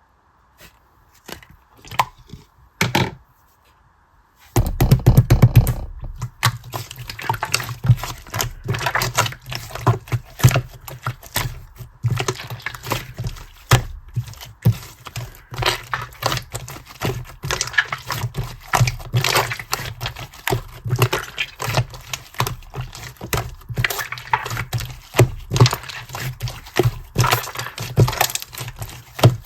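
Clear slime being mixed and squished by hand: a few separate sticky clicks at first, then from about four and a half seconds a dense, irregular run of wet clicks and pops with a low rumble under it.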